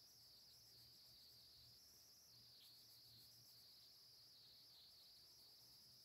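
Near silence: faint room tone with a steady high hiss.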